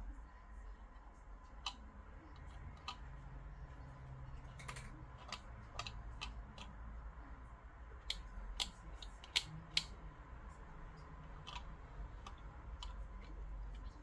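Scattered light clicks and taps of small parts being handled during a repair, irregular and sparse, with a quick cluster about two-thirds of the way through that includes two sharper clicks.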